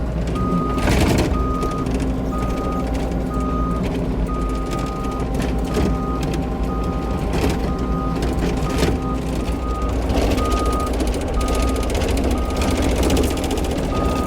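Cat 304 E2 mini excavator's travel alarm beeping steadily, about two beeps a second, over the steady running of its diesel engine. The alarm sounds because the tracks are being driven.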